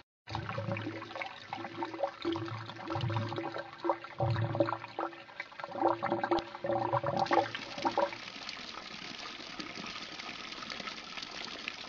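Water gurgling and splashing irregularly as it pours into a tank. About eight seconds in, it gives way to an even, steady flow.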